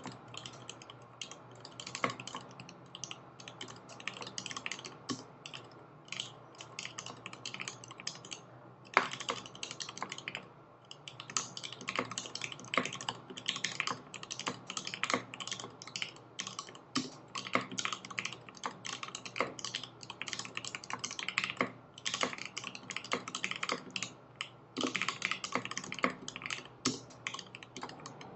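Continuous typing on a 60% mechanical keyboard with lubed Tiffany Blue Tealios linear switches (Tribosys 3204) in an XD60 aluminium case, capped with GMK Terminal keycaps: a steady stream of keystroke clacks with a few short pauses.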